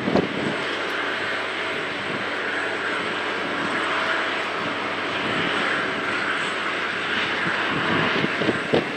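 Boeing 777-200LR's GE90 jet engines running during pushback: a steady hiss with a faint whine.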